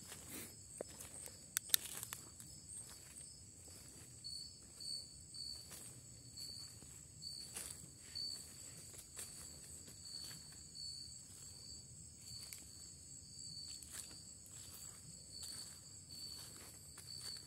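Footsteps on the forest floor, irregular light crunches with one sharp snap about two seconds in. Behind them, night insects call steadily: one high continuous tone and a lower chirp that repeats at short irregular intervals.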